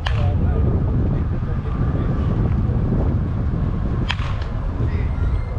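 A baseball bat cracks against a pitched ball twice, right at the start and again about four seconds in, during batting practice. A steady low wind rumble on the microphone runs underneath.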